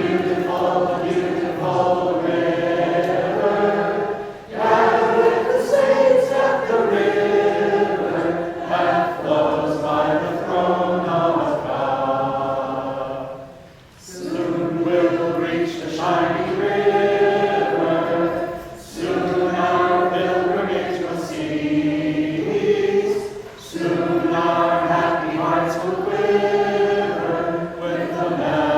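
A small vocal group singing a song together, in long phrases with short breaks between them, the longest break about halfway through.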